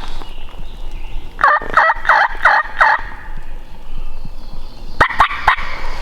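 Wild turkey tom gobbling: a loud, rapid rattling gobble about a second and a half in, then a shorter gobble near the end.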